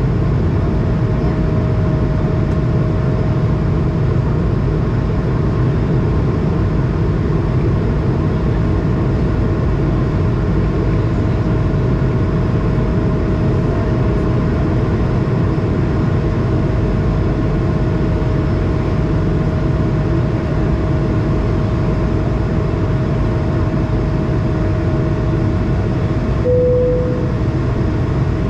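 Steady roar inside an Airbus A220 cabin in flight: airflow and its Pratt & Whitney PW1500G geared turbofan engines, with a steady droning tone underneath. A brief single tone sounds near the end.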